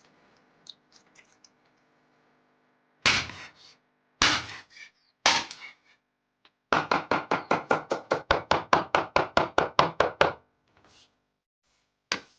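Knife chopping on a cutting board: three separate chops about a second apart, then a fast even run of about six or seven chops a second for a few seconds, and one last chop near the end.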